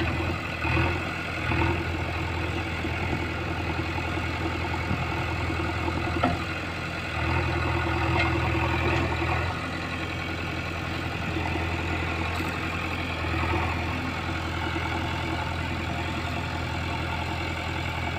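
JCB 3DX backhoe loader's diesel engine running steadily as the machine moves off, getting louder for a couple of seconds about seven seconds in.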